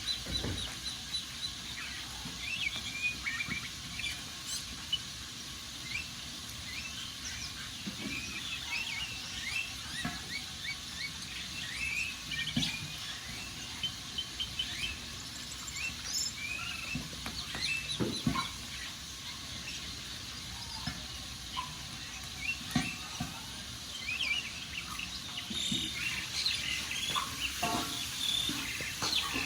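Birds chirping continuously over a wood fire that crackles, with a handful of sharper pops scattered through.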